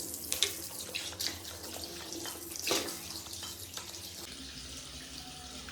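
Water running from a tap into a bathroom sink, with scattered splashes and clicks.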